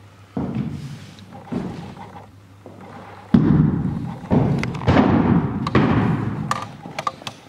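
Several heavy thuds from a shot put throw: the thrower's feet striking the wooden plank platform and the shot hitting the floor. The loudest thud comes about three seconds in, followed by a few more.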